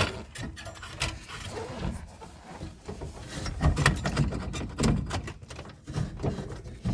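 Irregular clicks, taps and knocks of a hand tool working at a drilled-out car ignition lock cylinder, with some scraping and a few dull thumps.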